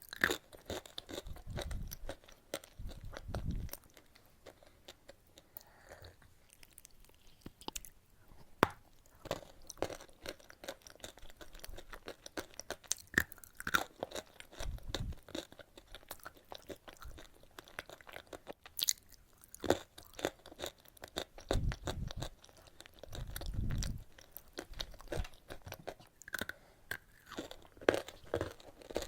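Close-miked eating of chalk: crisp, irregular crunches as pieces are bitten and chewed, with softer wet chewing between them and a few low rumbles.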